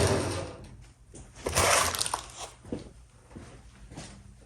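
A short rustling scrape, then a few light knocks and clicks from handling a cardboard parts box and its packaging.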